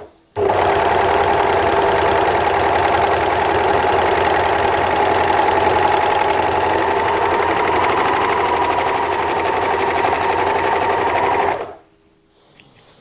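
W6 N454D overlock (serger) running steadily at speed, sewing a gathering seam through single-layer cotton with the needle-thread tension and differential feed turned up to maximum. It starts a moment in after a brief stop and stops near the end.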